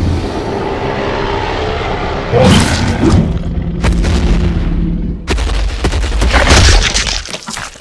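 Added fight sound effects for an animated dinosaur battle: a heavy low rumble with loud booming impacts, one about two and a half seconds in and another about five seconds in, followed by a burst of crashing that dies down near the end.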